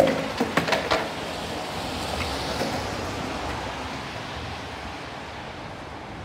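Skateboard clattering on brick paving: several sharp clacks in the first second as the flipping board hits the ground, then a steady rumble of its wheels rolling over the pavers that slowly fades.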